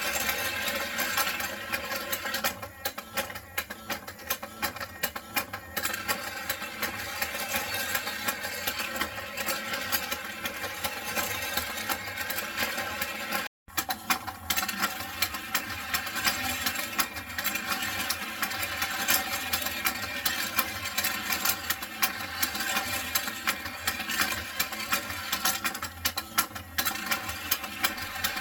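Battery-powered puppy race toy running: a small motor whirs and the plastic stair lift clatters with many fast clicks as the toy puppies are carried up. The sound drops out briefly about halfway.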